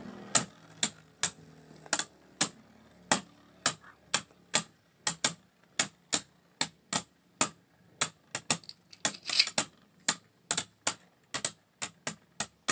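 Two Beyblade Burst spinning tops colliding in a plastic stadium: sharp plastic clacks about twice a second at uneven spacing, coming in quicker clusters in the later seconds.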